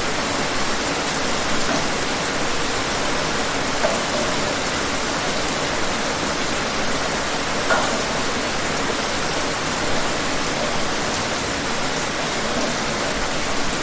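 Heavy rain pouring down steadily, a dense even hiss with scattered individual drop splashes.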